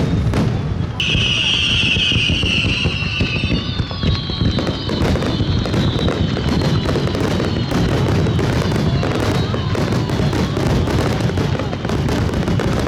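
Dense, continuous fireworks barrage: rapid bursts and crackling overlapping without a break, with whistling shells sliding slowly down in pitch and a bright high shriek about a second in.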